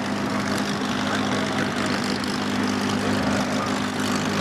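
Propeller aircraft engine running with a steady drone at a constant pitch.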